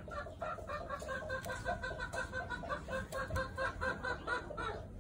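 A chicken clucking in a rapid, even series of short notes, about six a second, that stops abruptly near the end.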